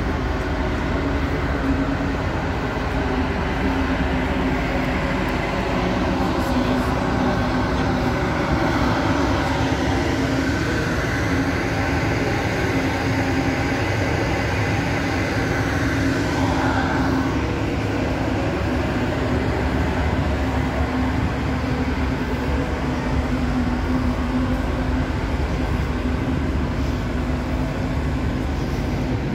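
Steady mechanical hum of a docked warship's ventilation fans and machinery, a constant drone with a low steady tone, swelling briefly about halfway through.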